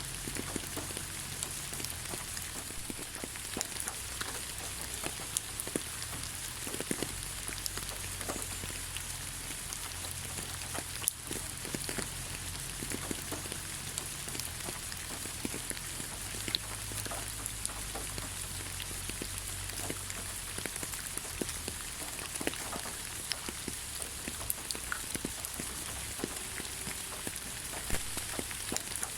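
Steady rain falling on the ground: an even hiss with many separate drops ticking and pattering throughout.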